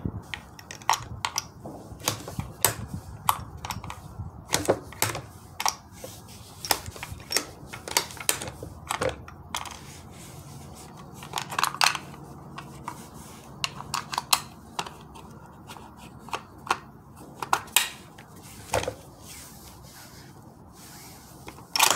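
Irregular metallic clicks and clacks of a bolt-action rifle's bolt and a cartridge being handled as a soft-nose .308 round is single-fed into a Ruger American, a round that keeps nose-diving and getting stuck on the way in. A louder sharp clack comes at the very end.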